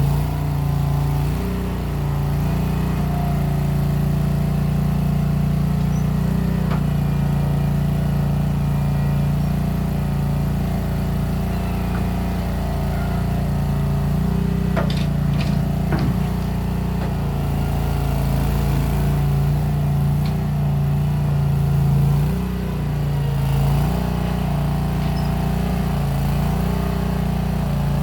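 Case 1816 skid steer's engine running steadily as it works, its speed sagging and picking up now and then. Two or three sharp clanks about halfway through.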